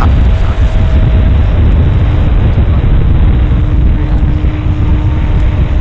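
Radio-controlled aerobatic model plane in flight: a steady, loud roar of engine and wind buffeting, with a faint steady hum from the engine and propeller coming in about halfway through.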